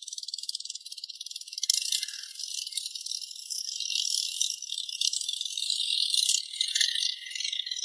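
A dense, high-pitched rattling buzz made of very rapid fine pulses, swelling louder about halfway through.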